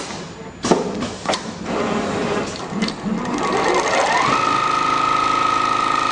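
Richpeace CNC pattern sewing machine running: a couple of sharp clicks about a second in, then the motor's whine rises to a high, steady pitch about four seconds in and holds as it stitches.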